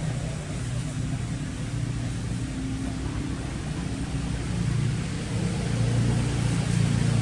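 A motor engine running steadily in the background, growing louder about five seconds in as if coming closer or speeding up.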